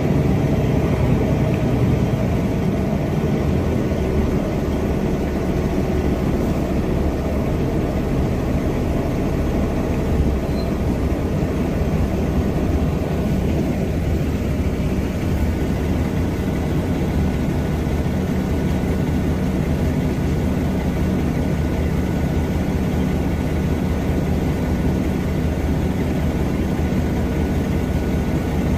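Mercedes-Benz O305 city bus's OM707 diesel engine running steadily under way, heard from inside the passenger cabin: a low, even drone with rumble.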